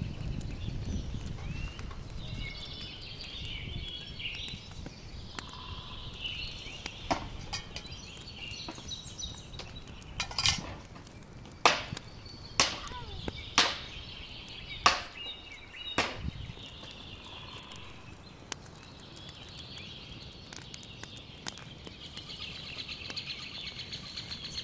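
A run of about seven sharp knocks and clacks in the middle, from things being handled at a wood cooking fire, over steady high chirping.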